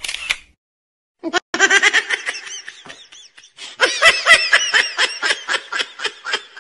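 Laughing sound effect: bursts of high-pitched, rhythmic laughter that start about a second in and grow louder and busier from about four seconds.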